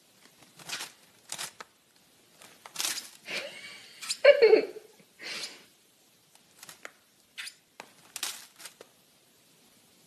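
Plastic bags crinkling in a series of short rustles, and a brief human voice about four seconds in.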